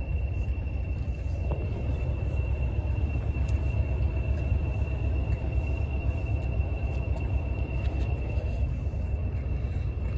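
Diesel locomotive engine idling: a steady low rumble with a thin, steady high-pitched whine over it.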